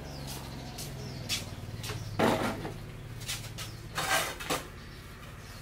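Plastic bag rustling in short bursts as it is handled and set on a small dial scale, over a steady low hum.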